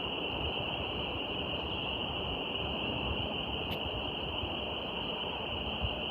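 Steady outdoor nature ambience: a constant even hiss with an unbroken high-pitched drone over it, and one faint click about three and a half seconds in.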